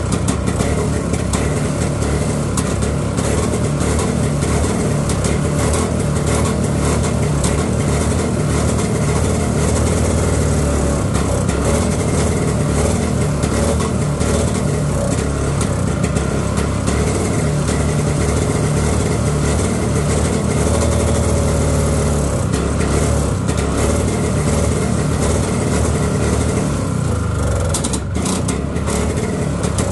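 1968 Eaton Viking snowmobile's air-cooled two-stroke engine running continuously, its speed rising and falling a little, with a brief dip near the end.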